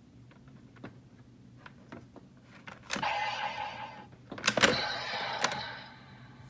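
Plastic clicks and snaps of a Bandai Legendriver toy transformation belt being handled. About three seconds in, and again about four and a half seconds in, a loud click sets off a burst of electronic sound effect from the toy, each lasting about a second.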